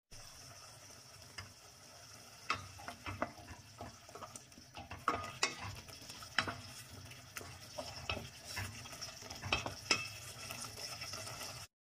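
A wooden spoon stirring a thick tomato-and-meat sauce in a stainless steel pot, with scattered scrapes and knocks of the spoon against the pot over a steady sizzle of the sauce cooking on the hob.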